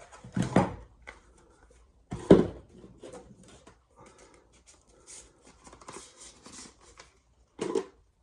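Sharpening stones and tools being handled and set down on a bench. There is one loud knock about two seconds in and another near the end, with light clicks and scrapes between them.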